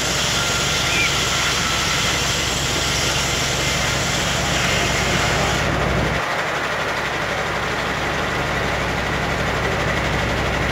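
Steam-powered machinery running steadily. About six seconds in, the sound changes abruptly and becomes duller.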